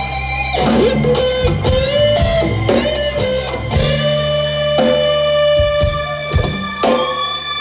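Live rock band playing an instrumental passage: sustained electric guitar notes over keyboards, bass and drums.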